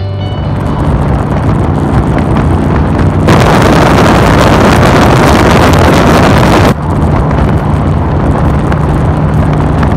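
Harley-Davidson motorcycle's V-twin engine running at highway speed, half buried under heavy wind noise on the microphone. The wind swells louder for about three seconds midway.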